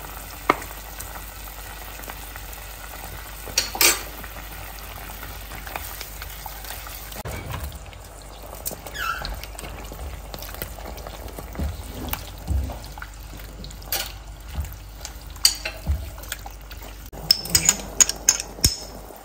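A creamy chicken and pasta sauce sizzling in a non-stick pan, with a spatula stirring and scraping through it. A run of sharp utensil clicks and taps comes near the end.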